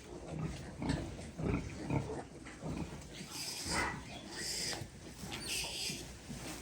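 Farrowing sow grunting in a series of short, low grunts.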